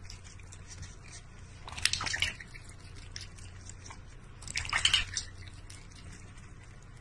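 Water splashing and dripping in a stainless steel bowl as a duck dabbles its bill in it, with two louder splashes about two and five seconds in and faint drips between.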